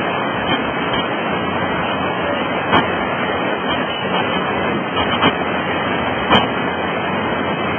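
Fast river rapids rushing steadily, with a few brief knocks.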